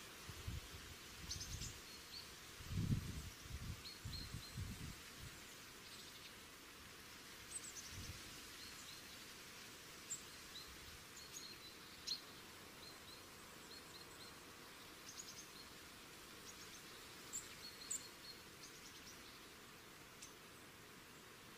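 Faint outdoor field ambience: a steady hiss with scattered short, high bird chirps. A few low rumbles come in the first five seconds, the loudest about three seconds in.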